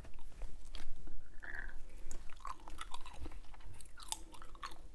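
Hubba Bubba bubble gum being chewed close to a clip-on microphone: wet, irregular smacks and small clicks.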